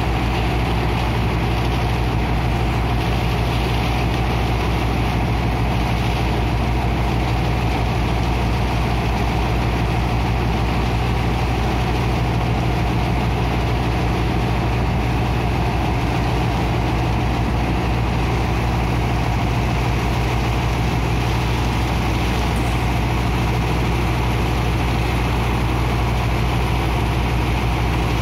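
Engine of a sand-dredging pump running steadily at constant speed, with the rush of water from the hoses into the sand slurry.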